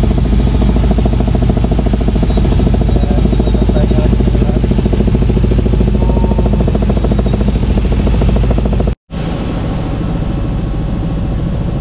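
Helicopter engine and rotor noise heard from inside the cabin: a loud steady drone with a fast, even pulsing of the blades. About nine seconds in it drops out for a moment, then a similar drone resumes a little quieter.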